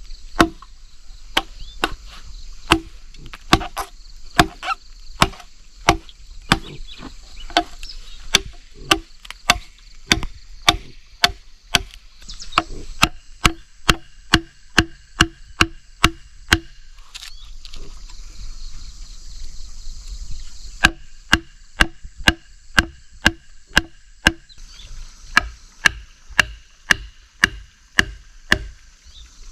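A mallet striking a wide wood chisel, cutting into a log to hollow it out. The knocks come in a steady run of about two to three a second, break off for a few seconds about halfway through, then start again.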